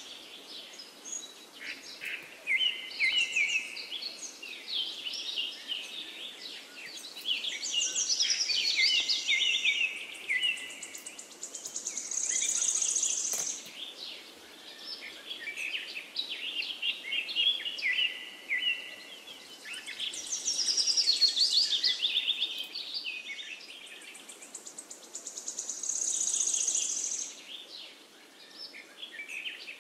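Birdsong: several birds chirping and trilling over one another, with quick falling trills and a high buzzy note that comes and goes, over a faint steady hiss.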